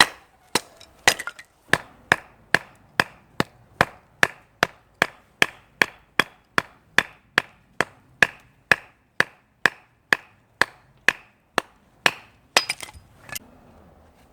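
Firewood being split with rapid, regular blows of wood on wood, about two strikes a second, ending in a few quicker knocks about thirteen seconds in.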